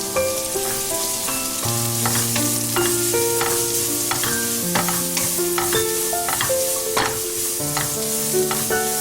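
Food sizzling in a frying pan, with frequent light clicks of a utensil working in the pan. Background music of held, changing notes plays over it.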